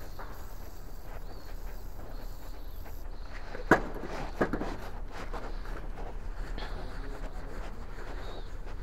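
Aerosol throttle-body cleaner hissing faintly as it is sprayed into a removed throttle body, stopping about three seconds in. Two sharp knocks follow a moment apart, then faint rustling and ticks as the part is handled and wiped. A steady low hum runs underneath.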